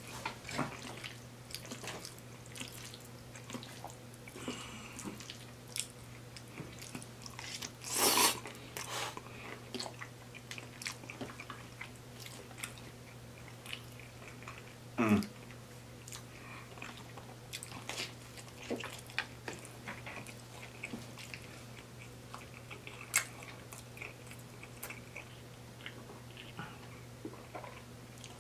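Close-up chewing and biting of cheesy spaghetti and garlic bread: irregular wet mouth sounds and small clicks, with one louder, longer noisy bite about eight seconds in. A low steady hum sits underneath.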